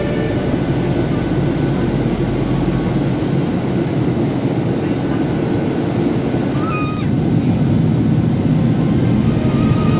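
Steady in-flight cabin noise of a Boeing 737-800, the even rush of air and its CFM56-7B turbofan engines heard from inside the cabin.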